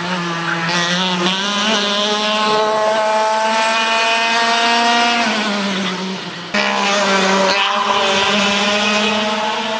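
Racing kart engine at high revs, its pitch climbing steadily for a few seconds, then dropping away about five seconds in as the throttle comes off. After an abrupt cut it runs high again with a slightly wavering pitch.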